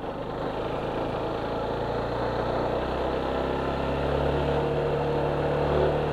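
Suzuki Gixxer motorcycle's single-cylinder engine running on the move as the bike gathers speed, with road and wind noise. The engine note steps up a little about three and a half seconds in.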